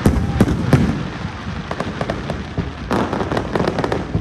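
Aerial fireworks bursting: a sharp bang at the start, more bangs about half a second in, then a dense crackle of many quick small pops from about three seconds in.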